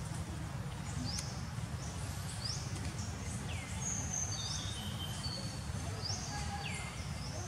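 Birds calling with short high whistled notes, some arching and some sweeping down in pitch, about one a second, over a steady low rumble of outdoor noise.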